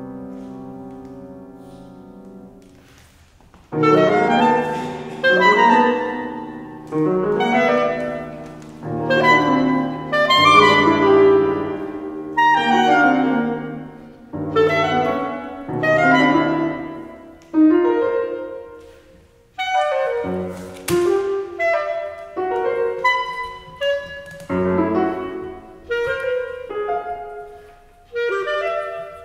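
Clarinet and grand piano playing a classical chamber duo. A held chord fades away over the first few seconds, then struck piano chords and clarinet lines come in short phrases with brief pauses between them.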